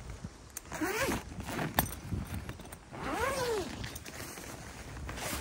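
The long zip of a fabric bivvy carry bag being pulled open in two strokes, the first about a second in and the second around three seconds in, with a click between them and fabric rustling as the bag is handled.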